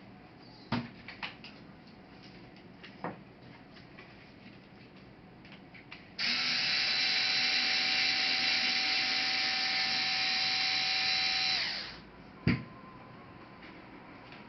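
A small electric motor whirs steadily at a high pitch for about six seconds, then winds down. Light clicks come before it and a sharp knock follows.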